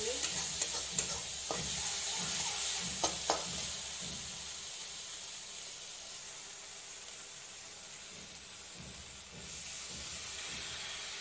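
Spice masala frying in an iron kadai, a steady sizzle, with a few clinks of the stirring spoon against the pan in the first few seconds. The sizzle slowly fades, and near the end water is poured into the pan from a steel bowl.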